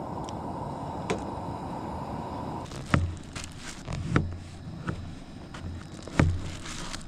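Camp cooking gear being handled: a steady low rushing noise that stops abruptly, then several sharp knocks and clinks, the loudest about three seconds in and again near the end.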